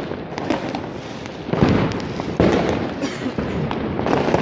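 Fireworks going off: a dense run of firecracker bangs and crackling, with two heavier bursts about one and a half and two and a half seconds in.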